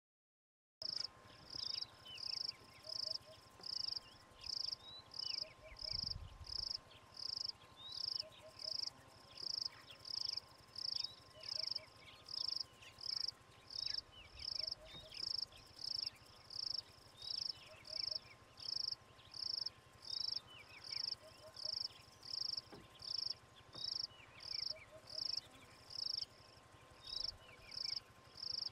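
An insect calling in short, high, evenly spaced pulses, about three every two seconds, with faint short chirps underneath.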